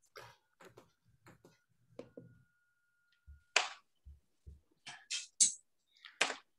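Faint scattered clicks, rustles and short breathy noises picked up by a video-call computer microphone, with a few soft low thumps. A thin steady whine sounds during the first half.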